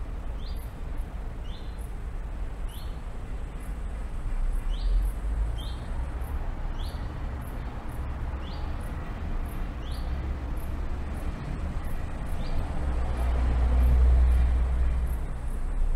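A low, steady rumble that swells twice, with faint short chirps, probably small birds, repeating every second or two over it.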